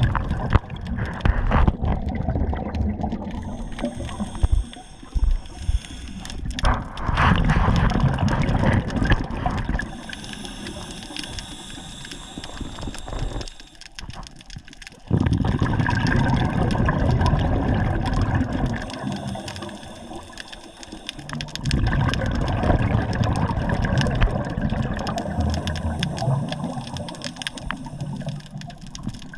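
Water sloshing and gurgling, with an uneven low rumble that swells and fades and briefly drops away about halfway through.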